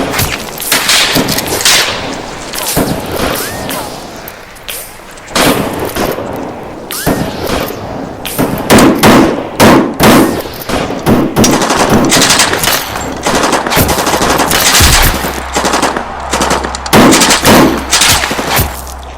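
Loud, rapid bursts of Thompson submachine-gun (Tommy gun) fire, broken by short pauses between bursts. A low steady rumble joins in during the second half.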